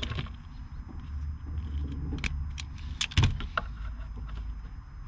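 A few short, sharp clicks and light rattles as speaker wires and a wire-stripping tool are handled, the loudest a little past the middle, over a steady low rumble.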